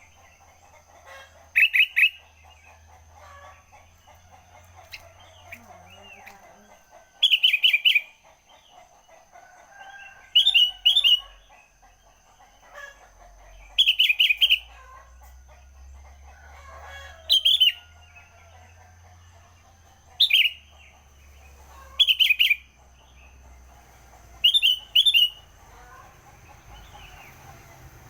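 Sooty-headed bulbul (kutilang) singing: short, loud bubbly phrases repeated every two to three seconds, about eight in all, over faint background bird chatter and a faint steady high tone.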